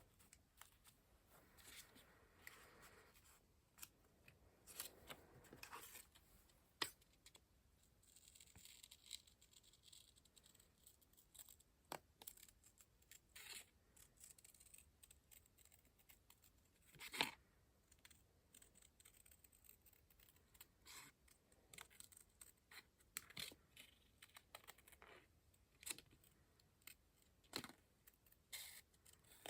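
Quiet paper-crafting sounds: paper being handled and cut, with soft rustling stretches and scattered small clicks and taps, the sharpest about halfway through.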